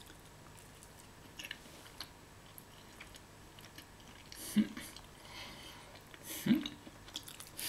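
A person chewing a mouthful of quiche with the mouth closed: faint soft, wet chewing noises, with two short hums about halfway through and near the end.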